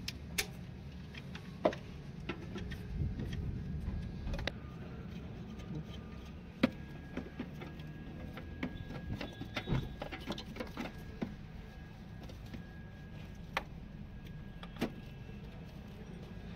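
Scattered sharp clicks and light metallic taps of hands and tools working on parts around a car engine's alternator, over a low steady rumble.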